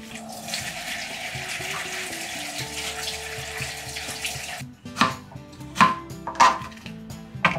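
Kitchen tap running into the sink as a peeled onion is rinsed under it, cutting off suddenly about four and a half seconds in. Then a kitchen knife cuts into the onion on a cutting board, with four sharp knocks. Background music plays underneath.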